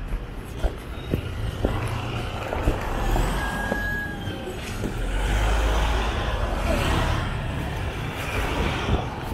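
Street traffic passing close: car and motorcycle engines and tyres, with a deep rumble that swells in the second half as a large SUV goes by. Light taps at a walking pace run under it early on.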